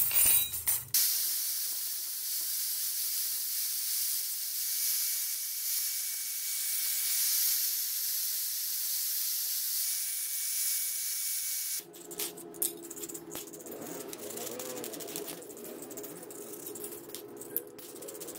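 Metal skewers clink as they are handled, then a Makita angle grinder runs against the metal skewers, a steady high hiss for about ten seconds that cuts off suddenly. After it, quieter scraping and clicks as a skewer is worked with a wire brush.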